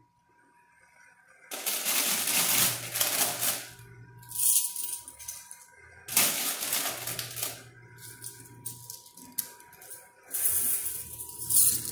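Quarters clattering and clinking in a coin pusher machine in several bursts, the first starting about a second and a half in. Smaller coin clicks run between the bursts, over a faint steady hum from the machine.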